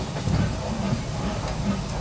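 Ffestiniog Railway narrow-gauge steam train running along the track: a steady low rumble from the wheels and the locomotive, heard from just behind the engine.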